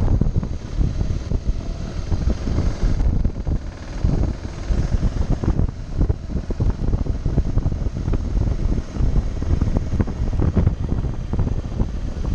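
BMW dual-sport motorcycle running at low road speed, its engine mixed with wind buffeting the microphone.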